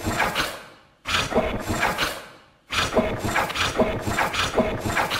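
Robot sound effect: three runs of rapid mechanical clicking mixed with short pitched blips, each run fading away before the next starts about a second and two and a half seconds in.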